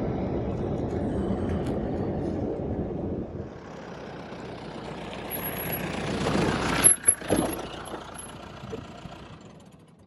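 Off-road SUV driving: steady engine and road noise that dips, then swells to a peak about seven seconds in with a brief high squeal, and fades out near the end.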